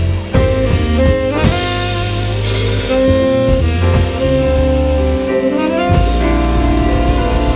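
Live jazz quartet playing: tenor saxophone holding long notes over acoustic bass, piano and drum kit, with a cymbal crash about two and a half seconds in.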